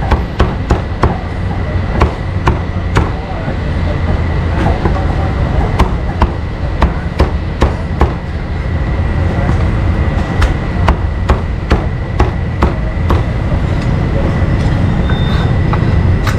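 Cleaver chopping cooked meat on a chopping board: sharp, irregular chops about twice a second, thinning out near the end, over a steady low rumble.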